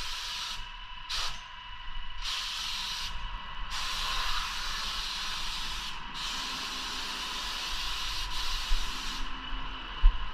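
Paint spray gun spraying woodwork in several bursts of hiss as the trigger is pulled and released, the longest about three seconds, over a faint steady whine.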